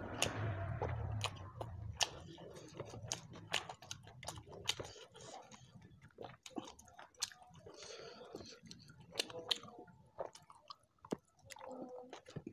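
Close-up chewing of a mouthful of rice and spicy shrimp, with many sharp, wet mouth clicks and smacks.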